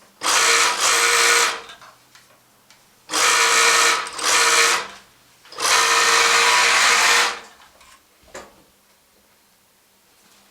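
Juki 8700 industrial lockstitch sewing machine running in three short bursts of about a second and a half each, starting and stopping with a steady high-pitched motor whir, followed by a faint click.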